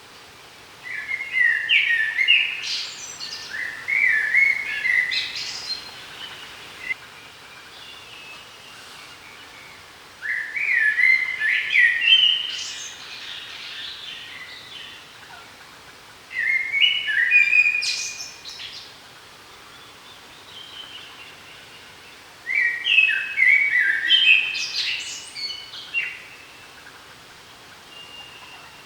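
A songbird singing five phrases of quick stepping, chirping notes, each lasting two or three seconds, with pauses of a few seconds between them, over faint steady outdoor background noise.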